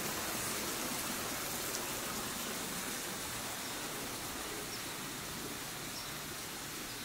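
A steady, even hiss that eases off slightly in level.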